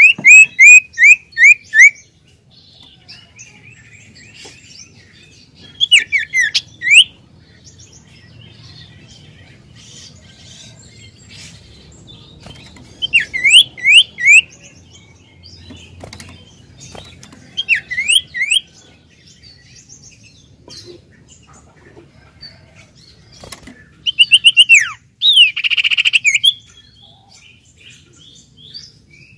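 An iora (cipoh) singing in five loud bursts, each a quick run of about four to six falling whistled notes. It is sung as a lure song to get a silent sirtu to sing.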